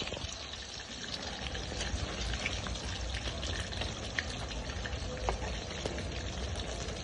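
Food frying in hot oil in a pan: a steady sizzle with scattered crackles and small pops.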